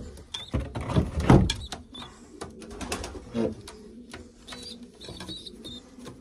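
Racing pigeons cooing in a loft, with scattered knocks and rustles throughout.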